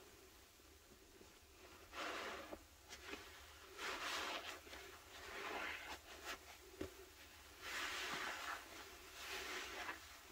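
Sponges soaked in thick pine-cleaner suds being squeezed and pressed by hand: wet, foamy squishing in separate bursts, about two seconds in, again for a longer stretch from about four seconds, and twice more near the end, with quieter gaps between.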